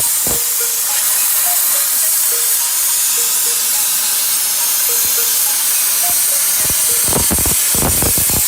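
Hypertherm plasma torch on a CNC plasma table cutting metal, a loud steady hiss of the arc and gas jet. Faint background music plays under it, with a few low beats near the end.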